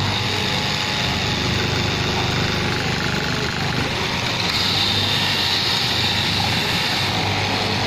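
Straight-knife cloth cutting machine running steadily, its electric motor driving the upright reciprocating blade through a thick stacked lay of denim. A brighter, higher hiss joins in for a few seconds in the second half.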